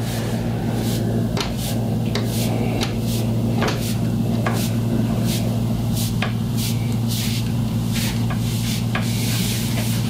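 Hands rubbing and pressing on a shirt over a person's back, making irregular short scuffs and taps, over a steady low hum.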